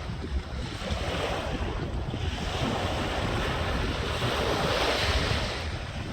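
Water washing and gurgling, rising and falling in swells every couple of seconds, with wind buffeting the microphone.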